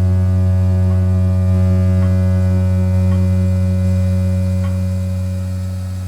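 Whirlpool gas water heater vibrating with a loud, steady low hum, which starts to fade in the last couple of seconds, with a few faint ticks. The vibration comes from the burner sitting in an unbalanced position.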